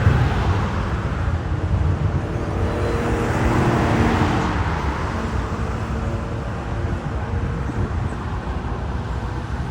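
Road traffic: motor vehicles running steadily, with one louder swell about four seconds in as a vehicle passes.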